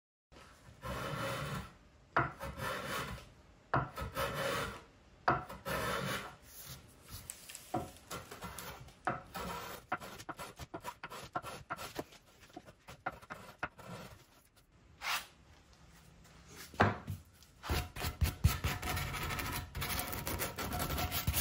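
Hand chamfering the end edges of a wooden bed leg: a small brass chamfer tool scrapes across the wood in separate strokes, each about a second long. Near the end this gives way to quicker, continuous hand-sanding with sandpaper.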